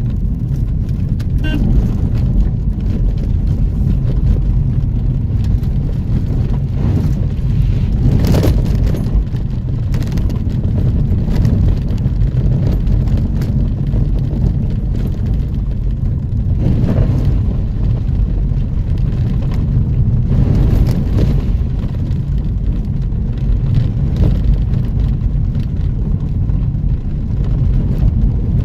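Off-road vehicle driving over rough ground: steady low engine and tyre rumble with occasional knocks from bumps, a few of them louder.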